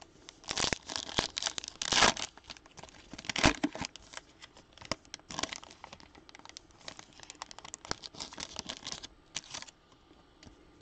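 A Donruss basketball trading card pack being torn open, its shiny wrapper crinkling in the hands in a run of crackly bursts, loudest about two and three and a half seconds in.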